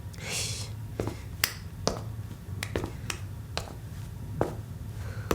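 Footsteps clicking on a hard floor as someone paces back and forth, sharp steps about half a second apart in short runs, over a low steady hum.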